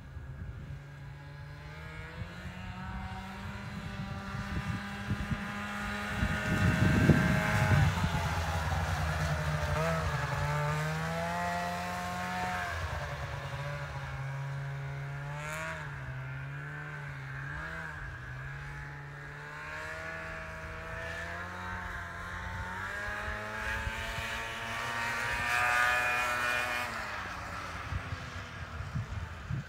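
Snowmobile engine running as it rides across a frozen lake, its pitch rising and falling as the throttle changes. It is loudest about seven seconds in and again near the end, as the sled comes nearer.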